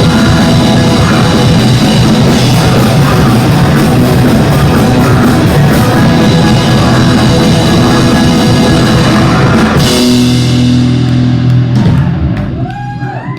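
Live band playing loud rock music with drum kit and guitar. About ten seconds in, the band stops together on a held final chord that dies away.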